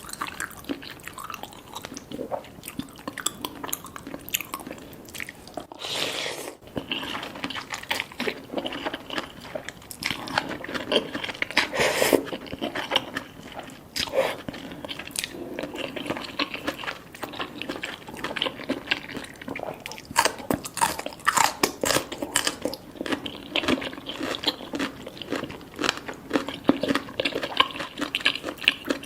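Close-miked chewing and biting while eating cheesy spicy Korean noodles: a dense, irregular run of wet mouth clicks and smacks, with a short lull about six seconds in.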